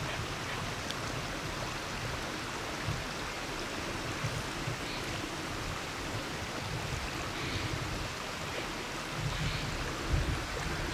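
Steady rushing outdoor hiss, with wind buffeting the microphone in low rumbles now and then, heaviest near the end.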